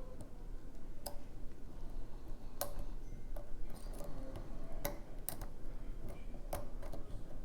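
Lock picking in a pin-tumbler challenge lock: the pick and tension wrench working the pins make about seven sharp, irregular clicks over a low steady hum.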